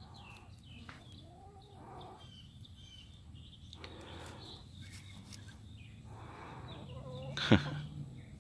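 Backyard laying hens clucking softly now and then as they forage. One brief sharp sound near the end is louder than the rest.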